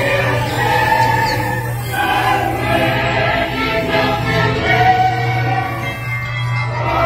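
Choir singing over music, the dark ride's soundtrack playing through the attraction's speakers, with a steady low hum underneath.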